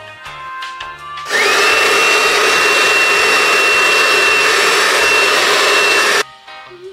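Handheld hair dryer switched on about a second in, its motor whine climbing to a steady high pitch over the loud rush of air. It is blown at a wig's lace to dry the spray that holds it down, and cuts off abruptly near the end.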